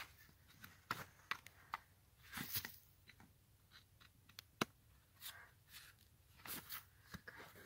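Hoof knife paring the sole of a horse's front hoof: short scraping cuts and crunchy clicks, with one sharp click about four and a half seconds in. The sole being pared is dry, dead sole that is starting to release.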